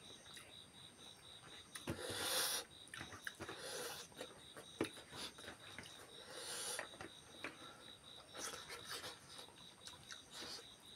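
Close-up eating sounds of people eating rice and beef by hand: small wet chewing and mouth clicks, with a few loud breathy bursts about two, four and six and a half seconds in. Behind them an insect chirps steadily in fast, even pulses.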